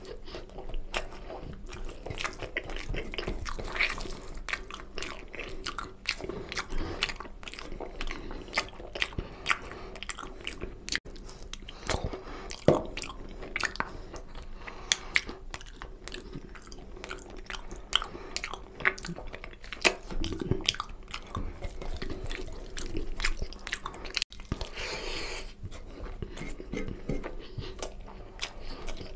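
A person chewing and eating mutton paya (goat trotters in oily curry) with rice, close to the microphone. It is a dense, uneven run of sharp mouth clicks and chewing noises.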